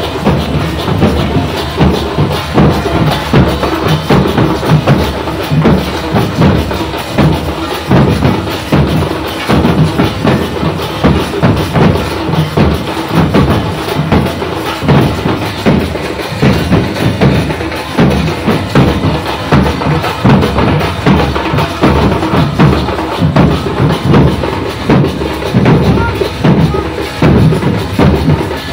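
Matua donka drumming: a group of large double-headed barrel drums (dhol) beaten with sticks together in a fast, dense, continuous rhythm.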